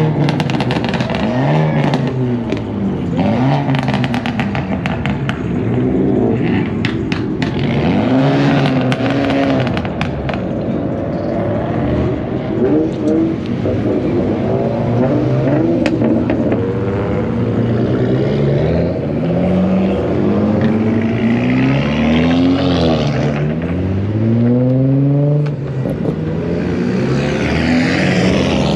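Car engines revving again and again, each rev climbing in pitch and falling back, with a run of sharp exhaust crackles and pops in the first few seconds.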